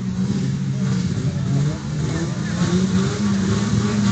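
Engines of several old wreck-race cars running and revving together on a dirt track, a continuous mix of engine notes.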